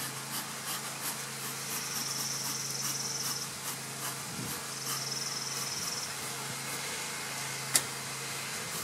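Honey bees buzzing around an opened hive, over a steady low hum. A high-pitched trill comes and goes twice, and there is one sharp click near the end.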